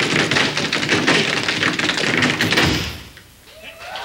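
A line of tap dancers' boots striking raised stage platforms in fast, dense taps. The taps stop short about two and a half seconds in, leaving a brief lull.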